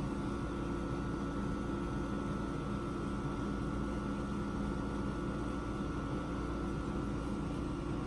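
A steady machine hum with a few held tones, unchanging in level throughout.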